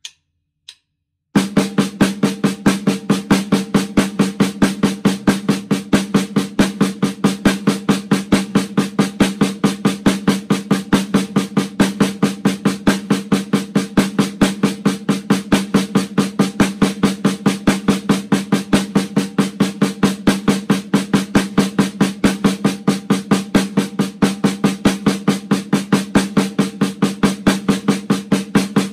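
A couple of sharp clicks, then about a second in a snare drum starts a fast, unbroken stream of even strokes with regular, evenly spaced accents, kept up at a steady tempo on the one drum.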